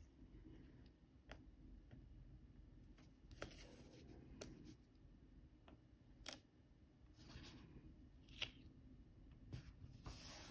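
Faint scattered clicks and short papery rustles from handling a paper planner and pen, over a quiet room hum.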